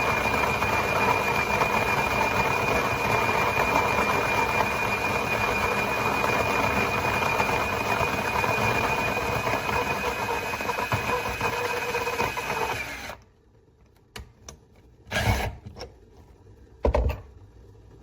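KitchenAid burr coffee grinder's motor running steadily with a high whine, then switching off about thirteen seconds in. A few short knocks follow.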